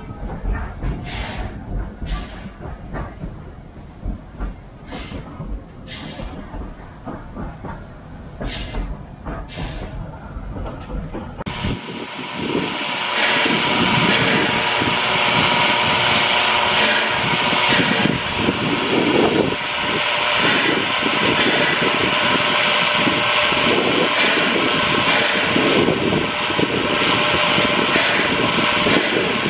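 Inside a steam locomotive's cab: a low rumble with scattered sharp knocks and clanks. About twelve seconds in it gives way to a loud, steady hiss of steam from steam locomotive No. 81 standing at rest.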